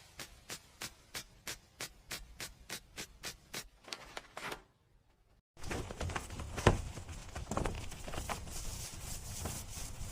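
Background music: a steady ticking beat of about three ticks a second, a brief drop-out, then fuller, louder music.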